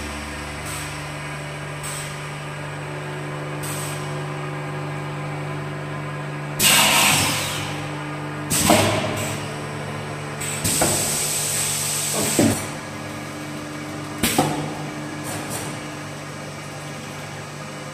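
Automatic skin vacuum packing machine running with a steady hum, broken several times by loud hisses of air as the sealing chamber cycles.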